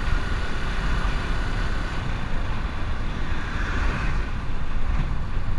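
A motorcycle being ridden at road speed: a steady wind rush and rumble on the microphone with the engine running underneath. A truck goes by in the other lane about four seconds in.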